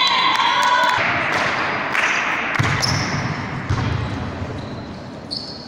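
Volleyball players' voices shouting in an echoing gymnasium for about the first second, then the reverberant hum of the hall with a few ball or foot thumps and some short, high squeaks.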